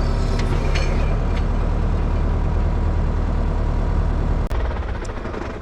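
A heavy vehicle engine idling steadily, with a sharp click about four and a half seconds in, after which it is a little quieter.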